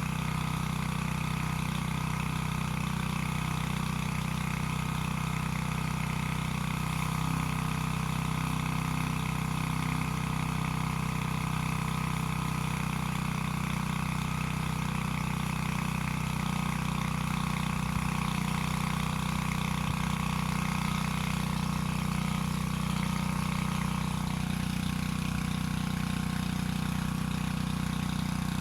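Predator gas-powered water transfer pump's small engine running steadily while it pumps water, with a slight change in its tone about 24 seconds in.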